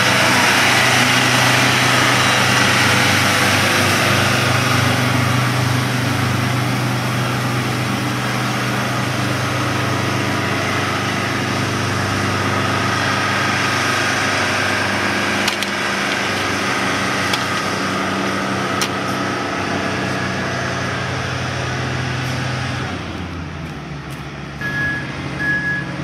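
Asphalt distributor truck's diesel engine running, under a steady hiss from its rear spray bar spraying hot asphalt binder. The hiss drops away a few seconds before the end, leaving the engine, and a repeating beep starts near the end.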